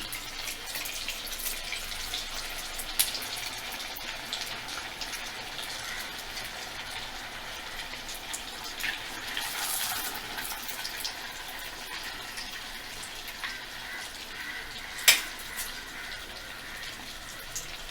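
Bread rolls stuffed with egg and potato deep-frying in hot oil in a small kadai, sizzling and crackling steadily, briefly louder about ten seconds in. A single sharp knock about fifteen seconds in is the loudest sound.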